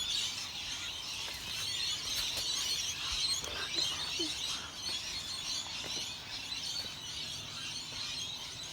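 Steady outdoor chorus of birds chirping, a dense high-pitched chatter that runs on evenly.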